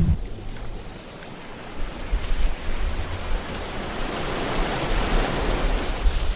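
Ocean waves breaking on a shore: the surf hiss eases about a second in, then swells to a loud wash about two-thirds of the way through before drawing back, with a low rumble underneath.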